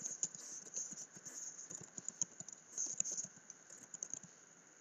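Typing on a computer keyboard: a quick, irregular run of key clicks that stops near the end.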